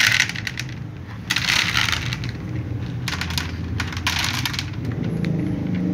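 Cats crunching dry kibble, heard as several short crisp bursts of chewing, with a low steady hum underneath that swells slightly near the end.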